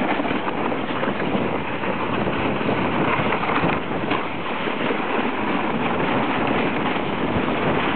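Plastic sleds sliding fast over packed snow: a steady scraping hiss that keeps up without a break.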